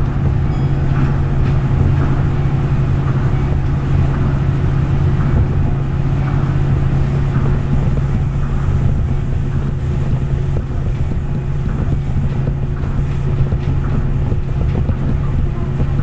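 Tokyo Monorail train running at speed through a tunnel, heard from inside the car: a steady, loud rumble from its rubber-tyred bogies on the concrete guideway beam, with a constant low hum.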